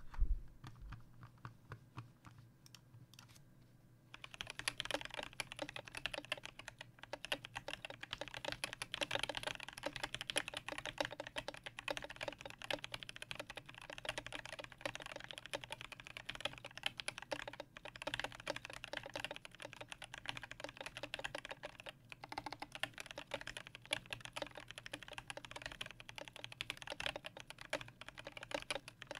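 Typing on a Melody96 mechanical keyboard with lubed Durock Koala tactile switches, a brass plate, an acrylic case and SA-profile PBT keycaps. A few separate keystrokes come first, then fast, continuous typing from about four seconds in.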